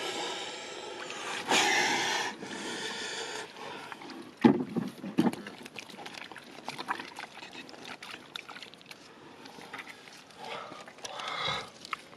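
Hands working in mud and dry earth: a rough scraping rush for the first few seconds, then scattered small knocks and two dull thumps about four and five seconds in.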